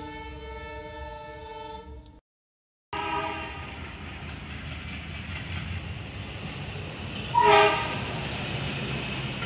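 Battery-operated Thomas the Tank Engine toy playing its electronic train-whistle sound from its speaker, a steady tone that cuts off suddenly about two seconds in. After a brief silence the toy's motor and plastic wheels run with a low hum, and a short, loud whistle toot sounds near the end.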